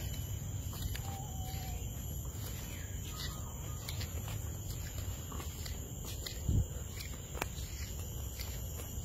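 Forest-trail ambience while walking: a steady high-pitched insect drone over a low rumble of footsteps and camera handling. A short faint bird note sounds about a second in, and a single thump comes about two-thirds through.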